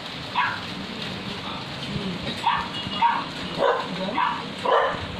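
Dog barking in short, high yaps: one, a pause of about two seconds, then a quick run of about five.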